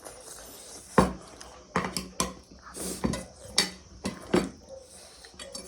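Cutlery clinking and knocking against bowls and plates during a meal, a string of irregular sharp clicks.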